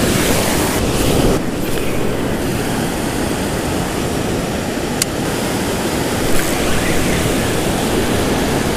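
Ocean surf breaking and washing up over the sand in the shallows, a steady rushing wash, with one sharp click about five seconds in.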